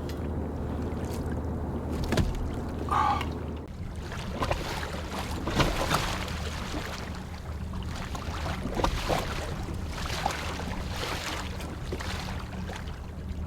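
Scattered knocks and clicks of gear being handled aboard a fishing kayak, over a steady low hum that comes from the faulty recording equipment.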